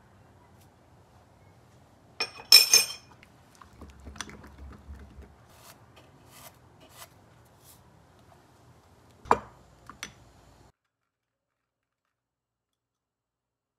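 Kitchen handling sounds of a plastic seasoning container, a wooden spoon and a small ceramic bowl. There is a loud clatter about two seconds in, then scattered soft ticks and scrapes as seasoning is shaken in and stirred, and two sharp knocks near the end before the sound cuts off suddenly.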